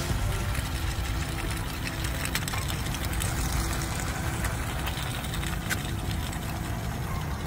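Small DC electric motor of a home-made craft-stick and soda-can toy tricycle running steadily as the toy drives itself across concrete.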